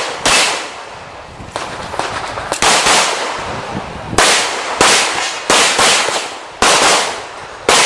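Handgun shots fired in a practical shooting stage: a string of about ten loud, sharp reports at uneven spacing, each trailing into a short echo.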